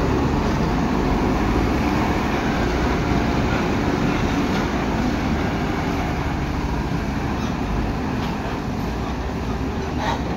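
Steady engine and road noise of heavy diesel vehicles crawling over a rough dirt road, with a loaded truck's engine running close by.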